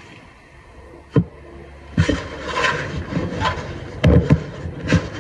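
Hands kneading a crumbly cookie dough on a countertop: rubbing and crumbling sounds as the dough is worked, with a dull thump a little over a second in and several more in the second half as it is pressed and knocked down onto the counter.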